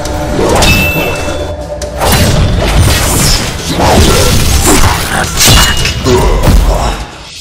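Action-film sound effects: a run of heavy booms, thuds and crashes, including an explosion, layered over dramatic background music. The sound drops lower briefly near the end.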